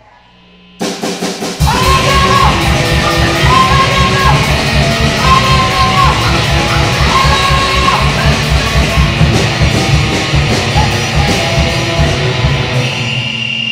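Fast hardcore punk band playing live: drums come in about a second in, then distorted guitar, bass and vocals join at a fast, pounding beat. The song stops short near the end, leaving one held high tone ringing.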